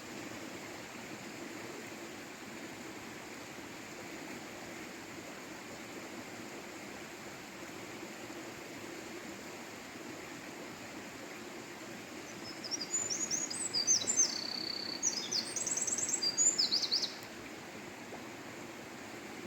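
Eurasian wren singing one high, rapid song of trills and quick notes that lasts about four seconds, starting about two-thirds of the way in, over a steady rushing background noise.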